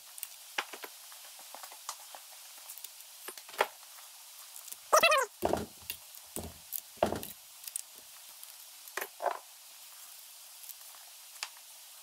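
Hand tools and metal parts being handled on a Polaris RZR 170 engine's cylinder head while it is being taken apart: scattered light metallic clicks, a short squeak falling in pitch about five seconds in, then a few dull knocks.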